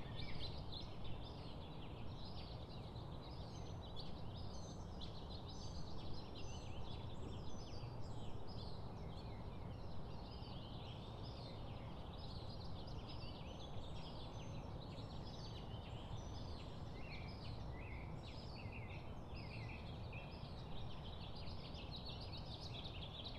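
Many small birds chirping continuously in overlapping short calls, over a steady low outdoor rumble.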